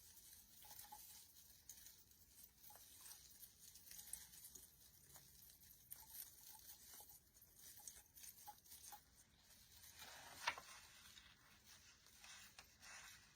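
Faint rustling and scattered small clicks of artificial pine greenery and picks being handled, with one sharper click about ten and a half seconds in.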